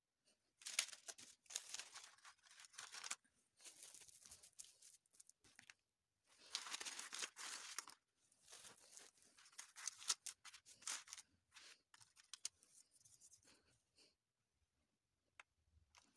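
Stiff paper sheet rustling and scraping as it is handled and smoothed on a table, in several bursts a second or two long, thinning to scattered light taps and clicks after about eleven seconds.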